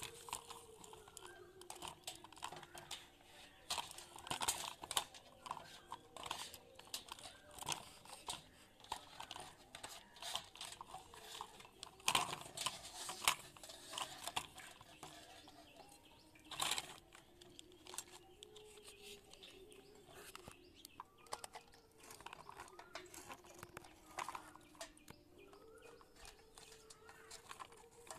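Plastic toys being handled: scattered light clicks and knocks, with a few louder knocks midway.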